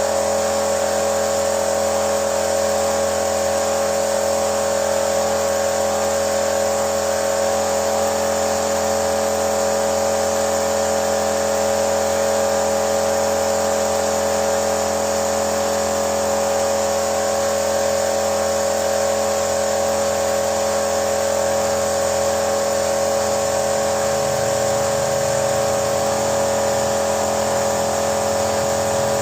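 Steady mechanical whir and hum from running machinery, holding a constant pitch and level with a high whine over it.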